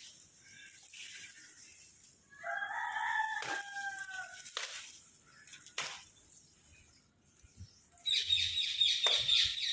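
A rooster crowing once, a drawn-out call of almost two seconds starting about two and a half seconds in, with a few sharp knocks. Near the end comes a loud burst of shrill, rapidly pulsing high calls.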